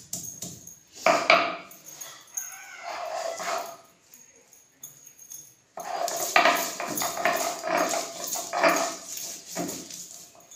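Spices being ground to a paste on a shil-nora, the Bengali flat grinding stone and hand stone: stone scraping over stone in quick back-and-forth strokes. The grinding comes in two spells with a pause of about two seconds between them.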